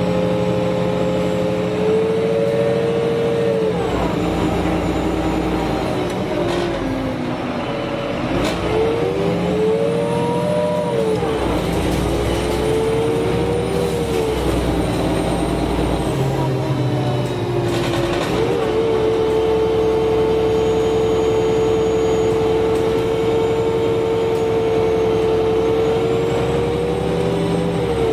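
Karosa B951E city bus with a Voith four-speed automatic gearbox, heard from on board while driving: its engine and drivetrain whine rises and drops back several times as the bus pulls away and shifts, then holds a steady pitch through the second half and falls away near the end.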